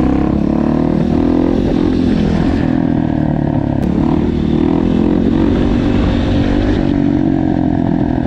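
Small 50cc motard motorcycle engine running under way, its note dipping sharply at the very start, then holding fairly steady with slight rises and falls. Wind on the microphone adds a heavy low rumble.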